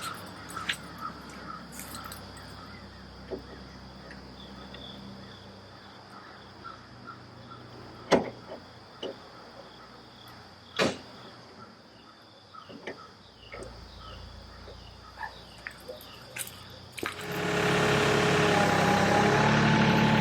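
Insects buzzing steadily with faint chirps and a few sharp clicks. About three seconds before the end, a heavy engine starts up much louder and keeps running.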